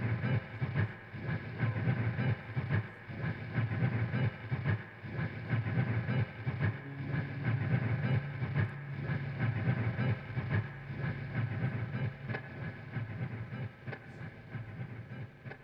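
Live ambient guitar music: a dense, droning wash of effects-laden guitar with a low throb pulsing about once or twice a second, fading down near the end.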